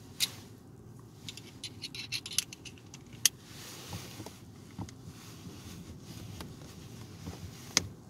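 Small sharp plastic clicks and rattles from hands working at a car's door-mounted power window switch panel, with a quick run of clicks about a second and a half in and single louder clicks a few seconds in and near the end.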